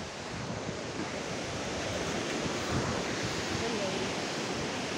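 Steady rushing of river water, an even hiss with no rhythm.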